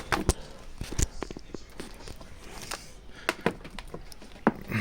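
Objects being handled: a few sharp clicks and knocks, the clearest about a second in and near the end.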